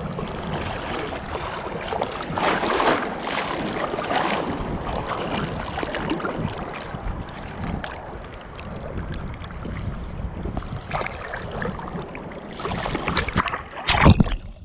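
Shallow sea surf washing and sloshing around a camera held at the waterline, with water splashing over the microphone. About a second before the end, a wave covers the camera with one loud splash.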